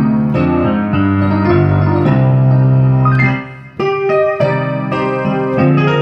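Keyboard music in an electric-piano sound: slow, held chords that change every half second to a second. The sound dips briefly about three and a half seconds in, then the next chord comes in.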